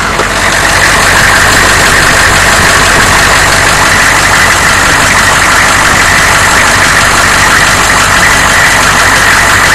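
A 1993 Chevrolet dually's 6.5-litre turbo-diesel V8 running steadily, a little louder from about half a second in.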